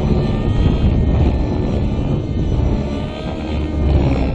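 Align T-REX 600N nitro RC helicopter's O.S. MAX-55HZ-R two-stroke glow engine, breathing through an MS55-3D ZERO.SP tuned muffler, running hard with the rotor going as the helicopter flies 3D aerobatics. The engine note wavers up and down with the manoeuvres.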